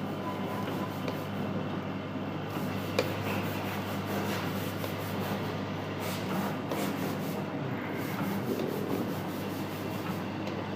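Automatic LED string-light soldering machine running: a steady mechanical hum with scattered short clicks, one sharp click about three seconds in.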